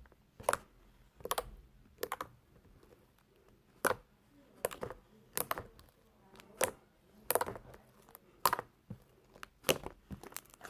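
Slime being squished and poked by hand, making sharp sticky popping clicks that come irregularly, about one a second, some in quick pairs.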